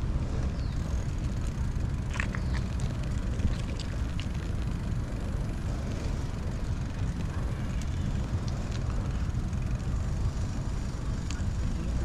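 Steady low rumble of outdoor background noise, with a few faint short high chirps or clicks.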